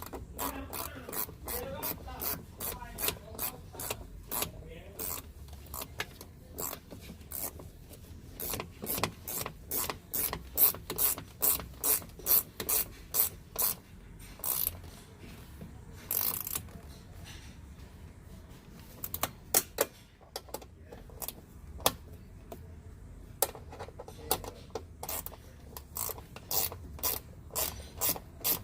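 Hand ratchet wrench clicking in long runs of quick, evenly spaced clicks with a few short pauses, as the bolts and nuts holding a new door check are tightened.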